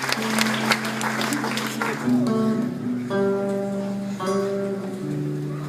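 Audience applause dying away over the first two seconds as a guitar begins the song's intro, picking slow sustained notes that change about once a second.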